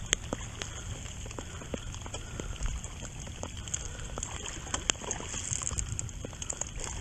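Rain falling, with many irregular sharp drop ticks over a steady low rumble.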